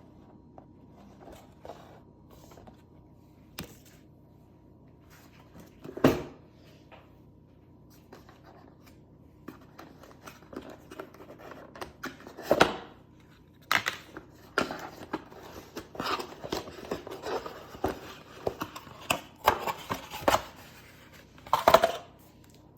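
Box and plastic parts being handled during an unboxing: rustling, light clicks and a few sharp knocks, sparse at first and busier in the second half, with the loudest knocks about six seconds in, about twelve seconds in and near the end.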